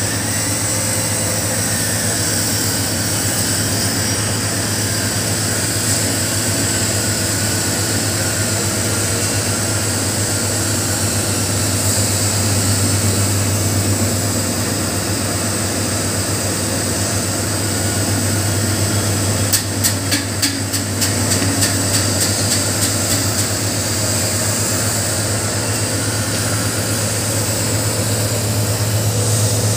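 Commercial bread slicer's electric motor running with a steady low hum. A burst of rapid clicking comes about twenty seconds in.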